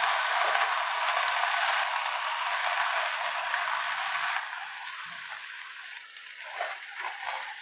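Vegetables and sauce sizzling in a hot frying pan, a steady hiss that drops suddenly about four seconds in and turns faint, with a few soft taps near the end.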